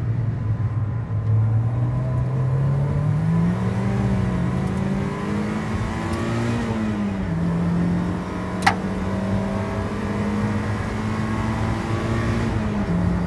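Mazda MX-5 Mk1 race car's four-cylinder engine under load, heard from inside the stripped cabin. The engine note rises, holds high, and steps down twice as the driver lifts or shifts, with tyre and wind noise underneath and a single sharp click about two-thirds of the way in.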